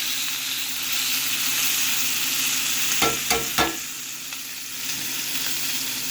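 Cornish hen searing in hot oil in a cast iron pan, a steady sizzle, with three quick knocks about halfway through.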